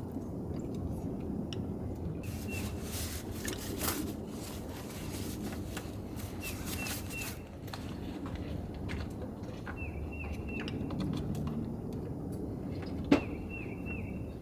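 Light clicks and handling of plastic parts as new ignition coils are fitted onto a Toyota 4.0 V6, with one sharp click near the end. A small bird chirps in quick short runs of notes four times in the background.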